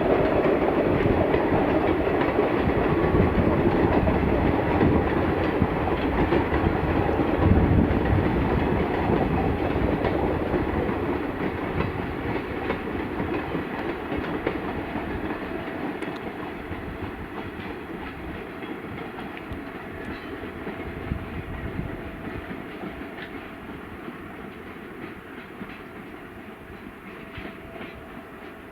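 Passenger express train's coaches rolling past with a rapid clickety-clack of wheels over rail joints, loud at first and fading steadily as the train moves away.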